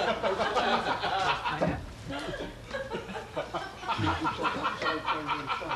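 Chuckling and snickering laughter, with some indistinct talk mixed in.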